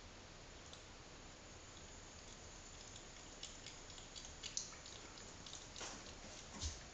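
A cat lapping water from a thin trickle at a bath tap: faint, irregular small wet clicks and drips, starting about three seconds in.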